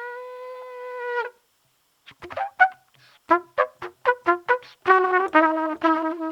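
Trumpet holding a steady note for about a second, then breaking off. After a short pause it plays a run of short, detached notes that jump about in pitch, ending in quick repeated notes on a lower pitch.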